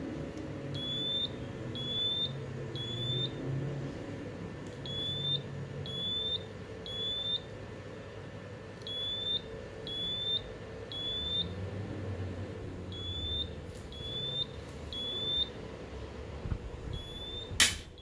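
First Alert smoke alarm sounding in test mode: groups of three short, high beeps, each rising slightly in pitch, repeating about every four seconds. A sharp click sounds near the end.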